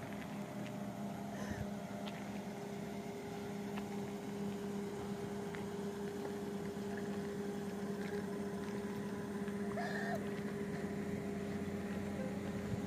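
A steady, even-pitched motor hum, slowly growing a little louder toward the end, with a few faint ticks over it.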